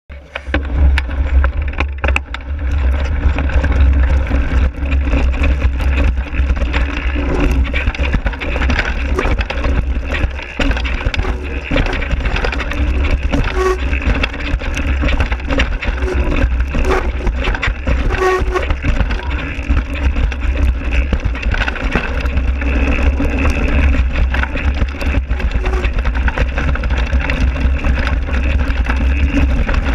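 Mountain bike riding fast down a dirt and gravel downhill trail, heard from a camera mounted low on the front fork: constant wind buffeting on the microphone under tyre noise, with frequent knocks and rattles as the bike goes over rough ground.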